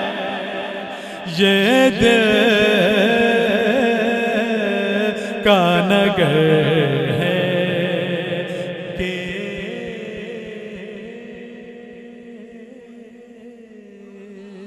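A man's voice chanting devotional verse in a long, winding melodic line, amplified through a loudspeaker system. Over the second half the held phrase trails off slowly.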